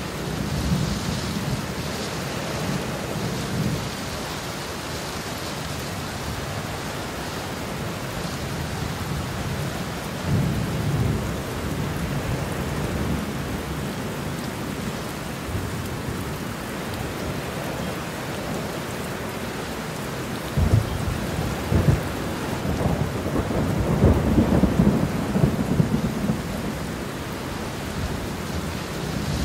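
Steady rain with rolls of thunder rumbling several times. The longest and loudest roll comes about two-thirds of the way in, opening with a couple of sharp cracks.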